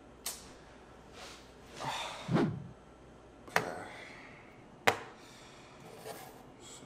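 Handling of a Samsung Galaxy Buds Pro charging case and earbuds on a wooden table: three sharp plastic clicks spread through, with soft knocks and rustles between them, the loudest thud about two and a half seconds in.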